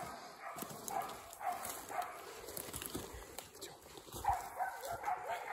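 Laika hunting dogs barking in the distance, repeated barks about two a second: the dogs are baying a bear they have brought to bay.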